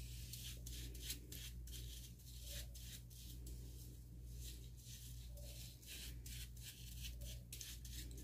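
Fingers rubbing curling mousse into the roots of braided hair: faint, irregular rustling strokes over a steady low hum.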